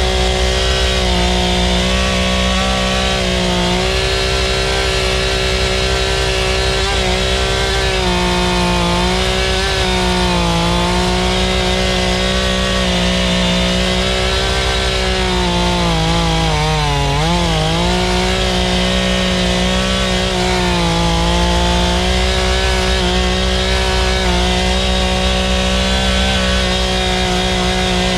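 Two-stroke chainsaw running at high revs while cutting through wood, its engine note dipping in pitch several times as the chain bogs in the cut, most deeply about two-thirds of the way through.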